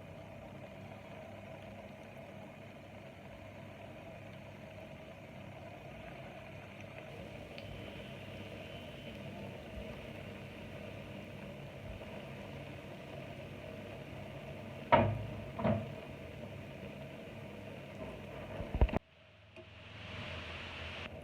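A steady mechanical hum, with two loud knocks of a utensil about a second apart and a sharp clack. Then hot oil starts to sizzle and grows louder.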